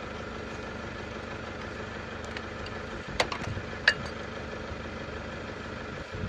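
Hand tools clicking on metal while the solenoid is taken off a diesel fuel injector, two sharp clicks about three and four seconds in, over a steady mechanical hum.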